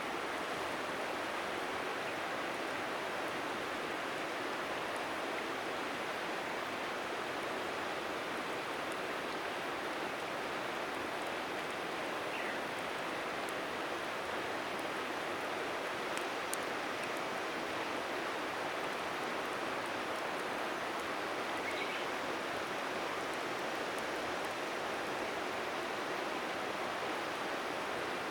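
River water rushing steadily, with a few faint crackles from a wood fire around the middle.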